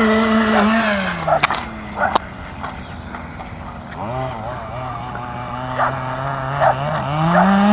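Radio-controlled car's motor running at a steady pitch and winding down about a second in, followed by a few sharp clicks. From about four seconds it runs again at a lower steady pitch, and it rises back up near the end.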